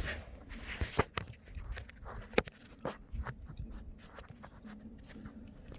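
Screwdriver tip scraping and clicking against a small plastic clip on the speed sensor connector as it is pried up, a handful of sharp clicks with one louder snap about two and a half seconds in.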